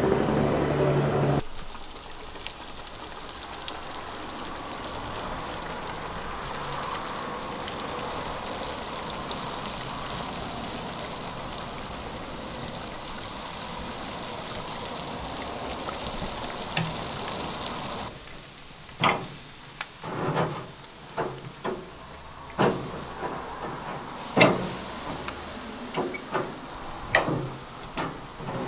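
Chicken deep-frying in a pot of hot oil, a steady sizzle, after a short loud hum in the first second or so. About two-thirds of the way through, the sizzle gives way to a string of sharp clacks: metal tongs knocking on the wire grate of a charcoal grill while turning jerk chicken.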